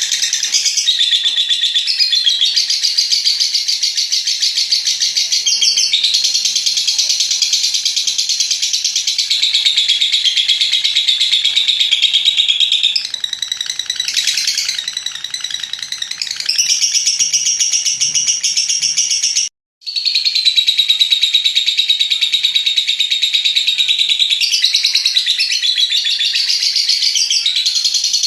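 Lovebird ngekek: a long, nearly unbroken run of rapid, high-pitched chattering trills. It breaks off for a split second about two-thirds through, then carries straight on.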